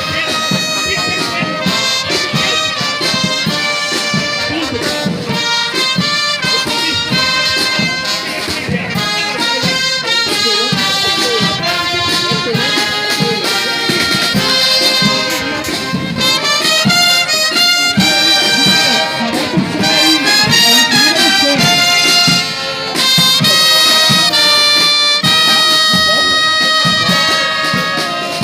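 Military band playing, with the brass to the fore; it gets somewhat louder a little past the middle.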